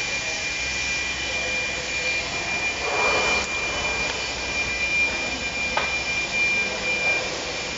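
TIG welding arc running: a steady hiss with a thin high whine that cuts off near the end.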